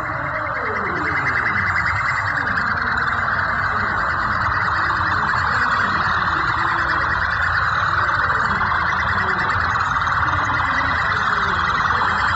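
Police motorcycle sirens sounding continuously in a fast warble, with the motorcycles' engines running underneath.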